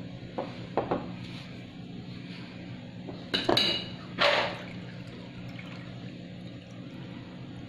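Stainless steel utensils against a steel bowl: two light knocks, then a sharp ringing clink a little after three seconds as the steel tumbler meets the bowl. Just after four seconds comes a short splash of water poured from the tumbler onto the flour mix.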